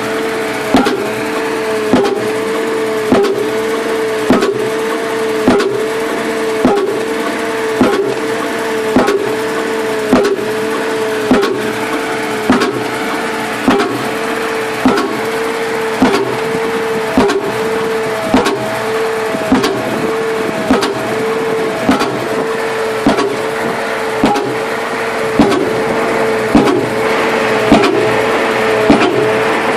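Pile driver hammering a pile: heavy blows repeating evenly about once every 1.2 seconds over a running engine whose pitch dips with each blow.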